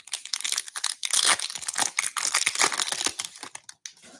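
A 2021-22 Upper Deck Series 2 hockey retail card pack torn open by hand, its wrapper crinkling and crackling in a dense run that stops shortly before the end.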